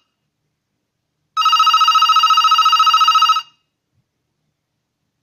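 Panasonic home telephone ringing: one fast-trilling electronic ring about two seconds long, starting about a second and a half in.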